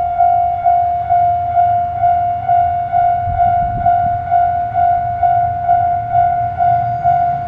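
Japanese railway level-crossing alarm ringing, its electronic bell striking a steady high tone about twice a second, with a low rumble underneath that swells about three to four seconds in.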